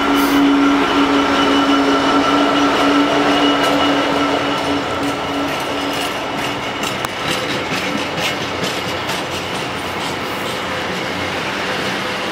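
Freightliner Class 66 diesel locomotive passing close with a steady engine drone that fades after about five seconds. A line of empty container flat wagons rolls by, its wheels clicking over the rail joints.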